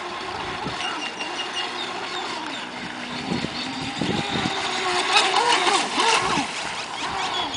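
Aquacraft SV27 RC boat's brushless motor, upgraded to 5-cell 18.5 V LiPo power, whining at high speed. Its pitch rises and falls as it runs, loudest about four to six seconds in, with the hiss of spray thrown off the hull.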